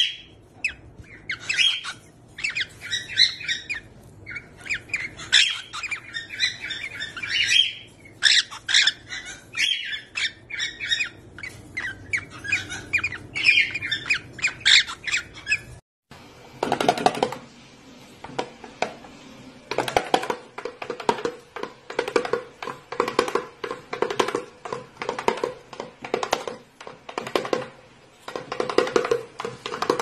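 Cockatiels calling in quick runs of sharp, squawking chirps for the first half. Then, after a short break, a fast, even percussive beat with a steady tone under it, like music with a drum.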